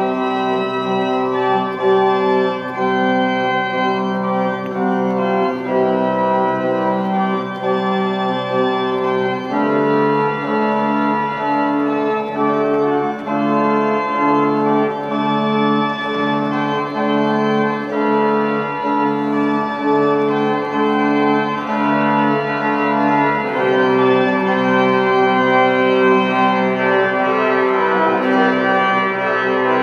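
Large church pipe organ playing full held chords, the harmony changing about a third of the way in and again near the end.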